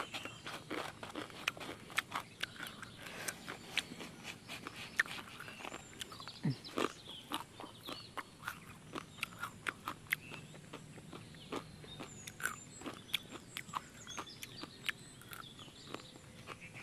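Close-up chewing and crunching of dry, uncooked instant noodles and raw onion slices, a string of irregular crisp crackles and wet mouth sounds.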